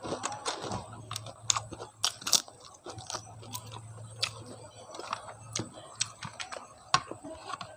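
Close-miked chewing of a mouthful of food, with many sharp, irregular wet mouth clicks and crunches.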